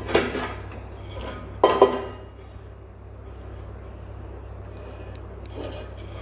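Clean dishes and vessels in a dishwasher rack clinking with a ringing tone as they are handled. There are two clear clinks, one right at the start and one a little under two seconds in, and a fainter one near the end.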